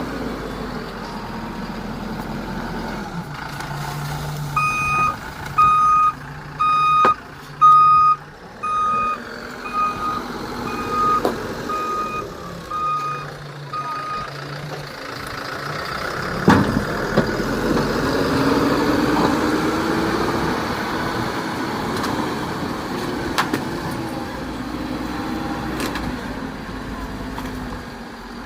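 A heavy machine's reversing alarm beeps about once a second, around ten times, over a diesel engine running. About two-thirds through there is a sharp knock, and the engine runs louder after it.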